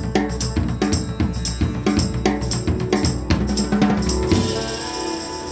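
Intro music with a steady drum-kit beat of bass and snare drum. The drums stop about four seconds in, leaving a held chord ringing out.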